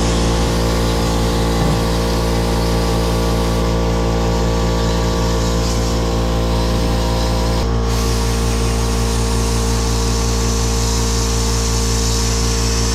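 Dotco air grinder running continuously at a steady high speed, grinding rust off a steel transmission crossmember. The pitch pattern shifts slightly about two thirds of the way through.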